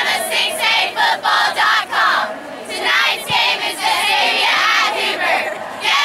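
A squad of high school cheerleaders shouting a cheer together in unison, in short rhythmic syllables with a brief pause partway through.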